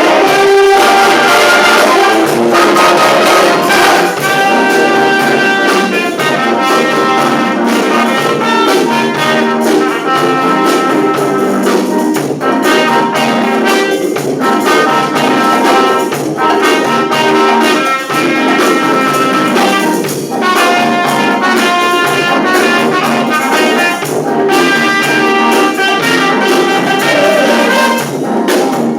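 Brass band playing a lively tune, trumpets and trombones to the fore, with percussion keeping a steady beat.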